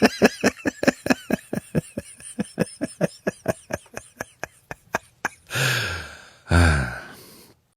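A person laughing hard in a quick run of short 'ha' pulses that slowly fade, then two long drawn breaths falling in pitch near the end.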